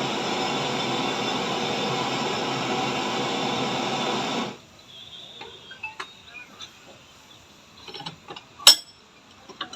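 A dense, steady sound that cuts off abruptly about four and a half seconds in, followed by light metal clinks and taps of hand tools on motorcycle shock absorber parts, with one sharp, loud clink near the end.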